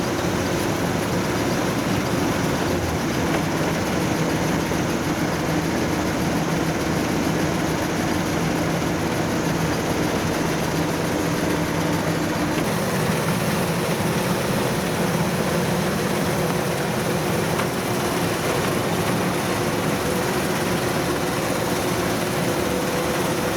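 Diesel engine of a Kubota combine harvester running steadily under way, its tone shifting about halfway through.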